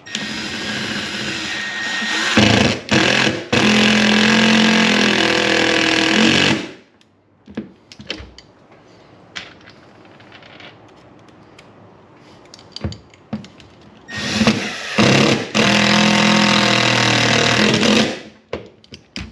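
Power drill driving screws to fasten a trolling motor power plug's mounting plate, in two long runs, the second starting about fourteen seconds in, with small clicks and handling between.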